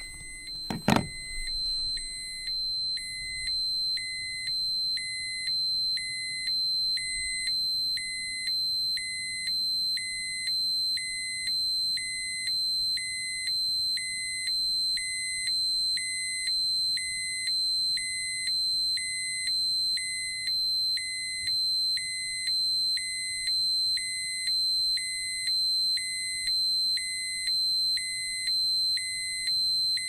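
Dosimeter alarm: a steady high-pitched electronic tone with a lower beep pulsing about once a second. About a second in there is a single sharp knock.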